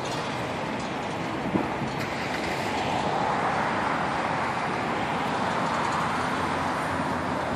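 Steady outdoor city noise, a rushing hiss that swells a little about three seconds in.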